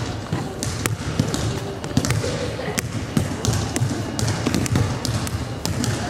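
Basketballs bouncing on a sports-hall floor: irregular sharp thuds, often more than one a second, from several balls being dribbled and shot.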